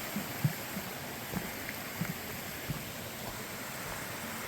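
Mountain stream rushing steadily alongside the trail, with a few soft footfalls in the first few seconds.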